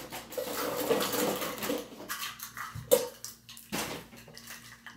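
Kitchenware clattering and rattling while a set of measuring cups is fetched, dense for the first couple of seconds. Then come a few sharp knocks, about three and four seconds in.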